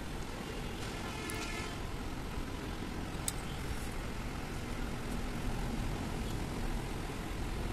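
Steady low background rumble, with a few light clicks of metal valve lifter buckets being handled and set into the cylinder head.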